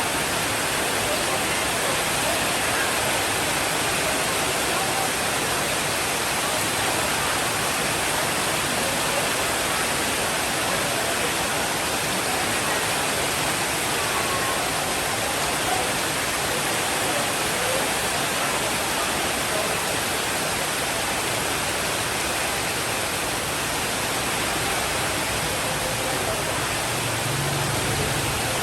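Steady, dense rainfall, an even wash of noise with no pauses, with a faint low rumble coming in near the end.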